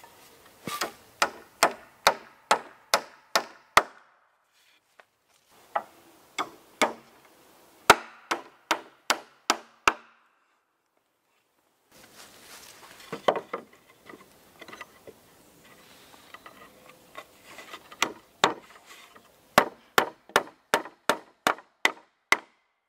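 The back of a hatchet head hammering nails through wooden roof shakes into a log rafter: runs of sharp wooden strikes, about two to three a second, with short pauses and some softer knocking between runs.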